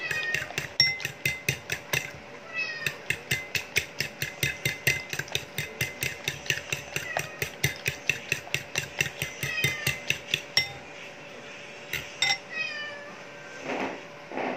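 Metal fork beating eggs in a bowl, clicking against the side about five times a second, with a short break about two seconds in, and stopping about three-quarters of the way through. A cat meows several times in short, falling calls.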